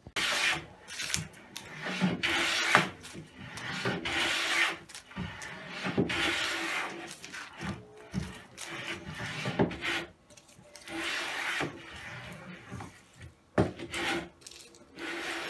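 Wooden vise being worked: the wooden screw turning and the jaw sliding in its wooden guide, wood rubbing on wood in repeated strokes of a second or two, with sharp wooden knocks in between.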